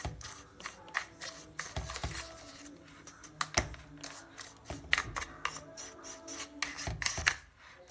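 Irregular plastic clicks and rubbing from an electric coffee grinder being handled, its lid and button worked by hand, with no motor running: the grinder fails to start even though its light comes on.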